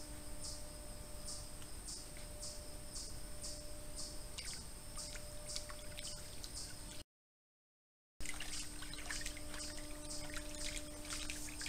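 Coyote lapping water and then splashing as it wades through a shallow creek. The sound cuts out completely for about a second midway, and comes back with denser splashing. Over it an insect chirps steadily, about two chirps a second, with a faint steady hum underneath.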